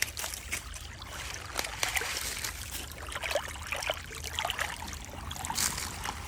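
Small creek water trickling and splashing as debris is pulled out of a clogged spot, with scattered short knocks and splashes from the hands working in the water.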